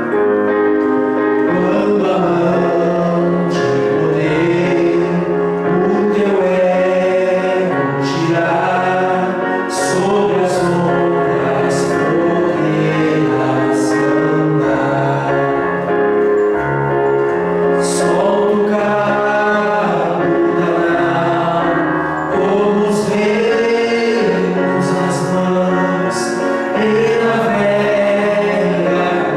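A gospel hymn sung by voices over instrumental accompaniment, the singing held on long notes that move through the melody.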